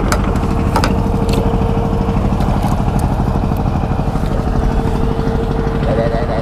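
Small boat engine running steadily at an even speed, with a few sharp knocks in the first second and a half.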